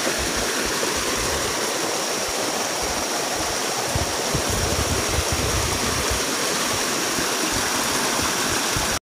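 Small forest stream rushing steadily over rocks and debris.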